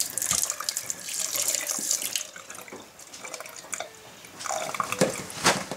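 Kitchen faucet water running and splashing over a whole raw chicken being rinsed by hand in the sink, easing off about halfway through, with a few louder splashes near the end as the wet bird is handled.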